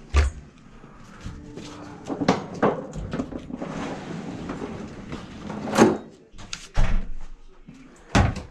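Several sharp knocks and thuds, with rustling and handling noise between them, as drain-cleaning equipment is picked up, carried and set down.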